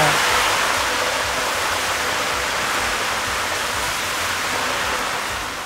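Fish deep-frying in hot oil: a steady, even sizzle that fades out near the end.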